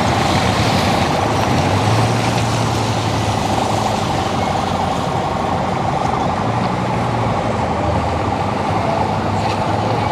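Road traffic: minibus engines running as vehicles crawl over a broken, potholed road surface, with a steady hum underneath.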